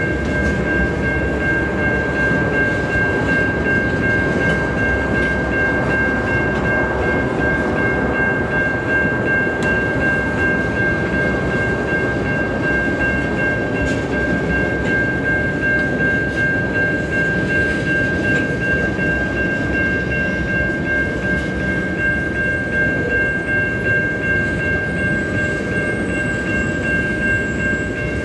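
Freight train of tank cars rolling past: a steady rumble and rattle of steel wheels on the rails. Over it, a grade-crossing warning bell rings in quick, even strokes.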